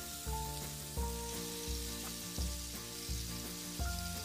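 Marinated chicken pieces shallow-frying in hot oil in a pan, with a steady sizzle, under soft background music with a low beat about every three-quarters of a second.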